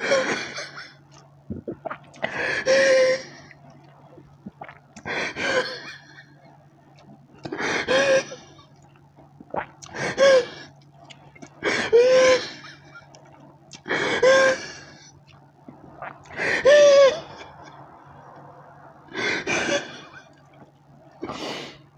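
A man gasping loudly about ten times, roughly every two seconds, each gasp a sharp rush of breath with a short voiced 'ah' in it.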